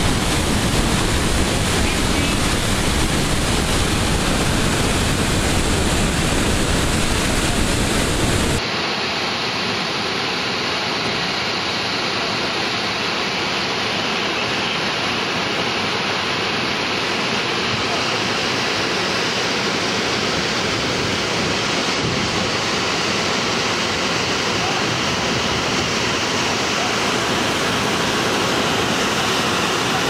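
Steady rush of a waterfall pouring over rocks, with a deep rumble underneath. About nine seconds in it switches abruptly to the thinner, hissing rush of whitewater rapids in a gorge.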